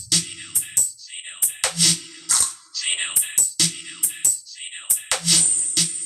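Electronic dance track with a steady beat of sharp claps and hi-hats and deep pitch-dropping bass kicks, played loud through a home sound system for a sound check: an amplifier driving a Crown 550-watt 15-inch woofer and a Broadway tweeter.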